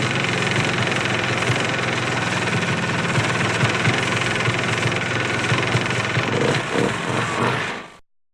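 ATV engine running steadily at an even speed, without revving, fading out to silence near the end.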